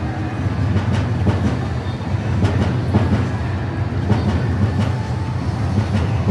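Train running on the rails: a steady low rumble with irregular clicks of the wheels over the track.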